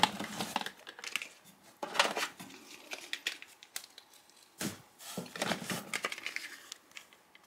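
Hands rummaging among boxed cosmetics and lip balm tubes to gather them up: rustling of packaging with scattered light clicks and knocks.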